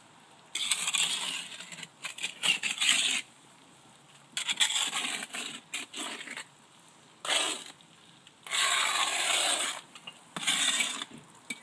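Mortar being scraped and worked against stone with a hand tool, in about five rasping strokes of one to two seconds each with short pauses between.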